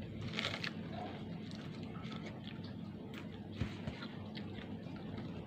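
Quiet eating sounds: chewing and fries being picked up from a paper wrapper, a few faint clicks and rustles over a steady low hum.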